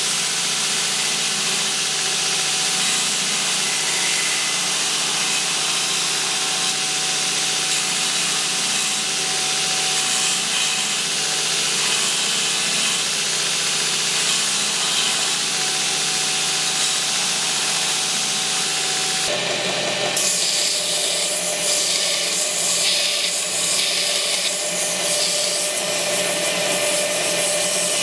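Belt grinder running steadily, its abrasive belt sanding a scabbard piece held against it over the contact wheel: a continuous grinding hiss with a faint machine hum. The tone of the grinding changes abruptly about two-thirds of the way through.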